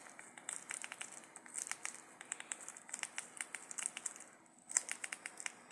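A TV box remote control's buttons clicking in quick, irregular presses, the sound of someone typing a search on an on-screen keyboard. A faint steady hum runs underneath.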